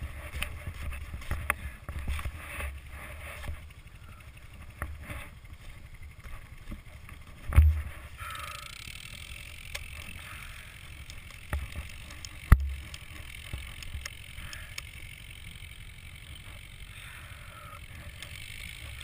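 Wind rumbling on a helmet-mounted camera's microphone, with small scattered clicks and two sharp knocks, one about a third of the way in and one about two-thirds in.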